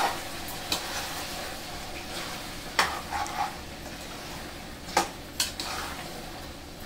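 Mutton pieces sizzling in a pot while a spoon stirs them, knocking and scraping against the pot four or five times. The meat is frying in its own released water until that water cooks off.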